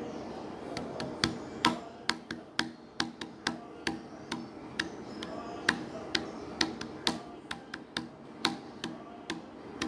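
A run of short, sharp clicks or taps at an uneven pace of about three a second, starting about a second in.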